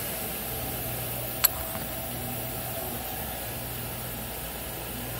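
Steady hum of running shop machinery with a faint hiss, and one sharp click about a second and a half in.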